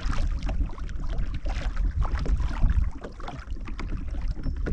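Water lapping and splashing against the hull of a Hobie Compass pedal kayak under way, with wind rumbling on the microphone.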